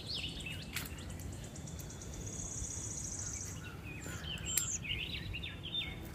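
Small birds chirping and twittering in short, quick calls, with a rapid high trill through the first half, over a steady low background hum. A couple of sharp clicks, one about a second in and one about four and a half seconds in.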